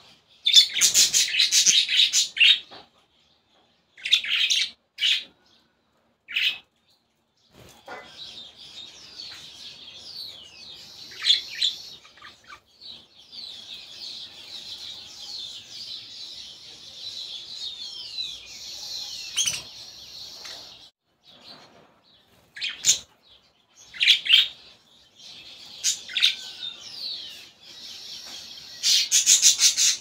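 Budgerigar chicks cheeping: a steady run of high, overlapping chirps, broken by louder short bursts of chirping every few seconds.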